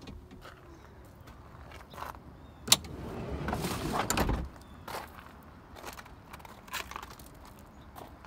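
A sharp knock, then rustling and crunching while someone climbs out of a minivan, followed by footsteps on gravel about once a second.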